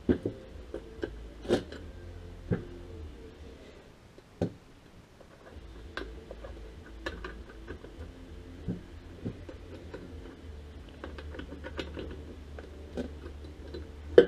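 Scattered clicks, taps and knocks of hand work on a Stihl MS 360 chainsaw's bar and chain as it is fitted and tensioned, with a few louder knocks in the first five seconds, over a faint low hum.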